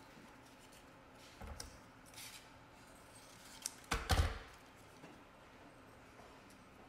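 Fine sandpaper rubbing the primed frame in a few short strokes, with light handling rustles and a louder knock about four seconds in.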